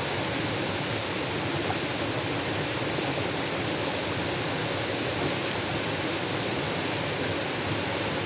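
Steady rushing of white water pouring over a rocky river cascade.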